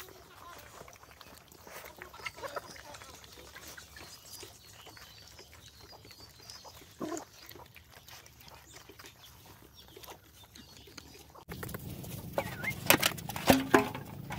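Hens clucking softly as they feed, mixed with faint ticks and scrabbling, with one short louder call about seven seconds in. Near the end the sound changes abruptly to a louder scene with several sharp knocks and clicks.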